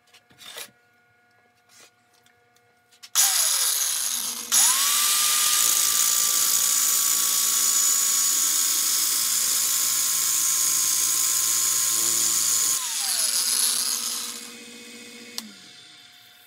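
Angle grinder with a flap disc grinding the rim of a steel hole saw spinning in a wood lathe: a steady harsh hiss of metal grinding over the grinder motor's high whine and the lathe's lower hum. The grinder whine rises about four and a half seconds in and winds down after about thirteen seconds, and the lathe coasts to a stop a couple of seconds later.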